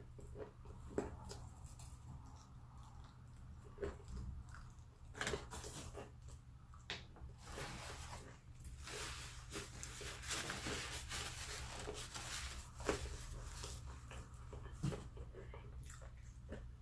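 A person eating close to the microphone: chewing and biting into fried chicken, with scattered crunches and mouth clicks and a longer, noisier stretch of crunching around the middle.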